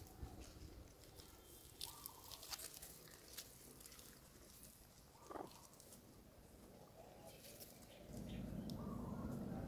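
Faint rustling and ticks of dry leaves underfoot, with a few short animal calls, one rising call about five seconds in. From about eight seconds in a louder low rumble comes in.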